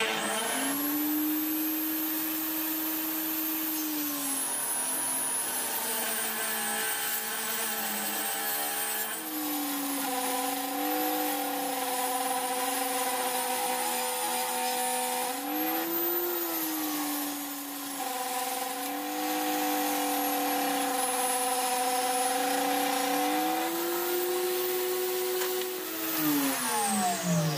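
Electric saw starting up and running, its motor pitch sagging several times as it cuts wood, then switched off and winding down near the end.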